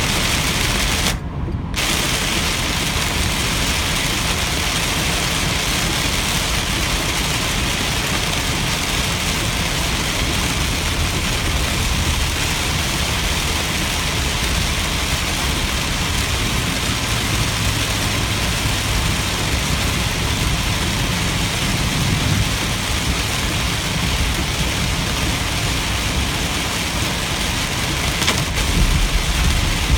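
Heavy rain beating on a car while it drives, mixed with steady engine and road noise. The sound drops out briefly about a second in, and a low rumble grows louder near the end.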